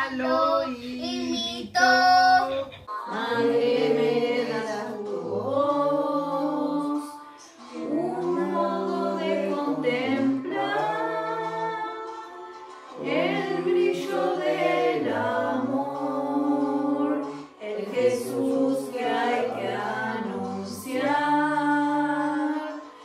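Children and women singing a Spanish hymn together, in long held phrases of a few seconds each with short breaks for breath between them.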